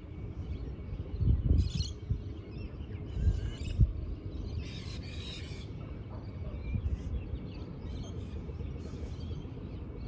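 Birds calling in short snatches several times, the longest about a second, over wind rumbling and gusting on the microphone.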